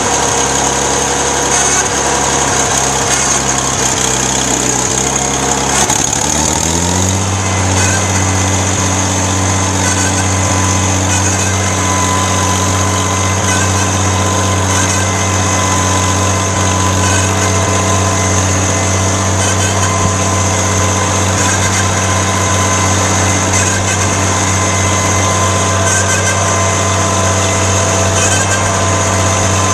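Farmall 560 tractor's gasoline six-cylinder engine running in gear as the tractor drives off. About six seconds in the engine speeds up, then runs steadily at the higher speed.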